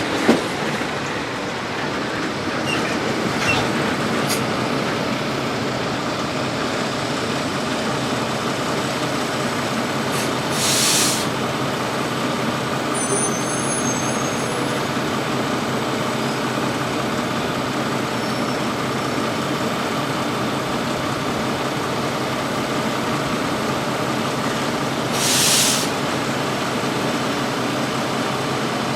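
Heavy farm machinery running steadily during silage work, with two short pneumatic hisses of air brakes releasing, one about a third of the way in and one near the end.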